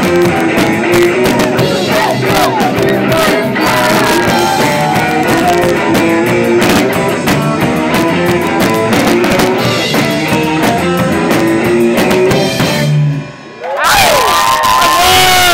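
Live rock band playing loud, with drum kit, electric bass and guitar. About 13 seconds in the song stops, and the audience cheers and shouts.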